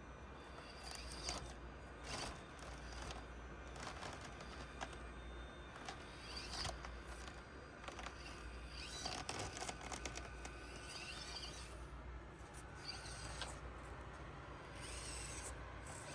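Axial SCX24 Deadbolt mini crawler's small brushed motor whining faintly in short spells, with scattered clicks and scrapes of tyres and chassis on the course's obstacles.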